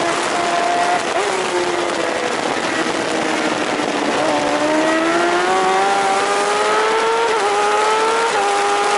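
Racing superbike's engine over a heavy rush of wind, heard from an onboard camera. The engine note sinks while the bike brakes hard, then climbs steadily from about halfway, with two small drops near the end.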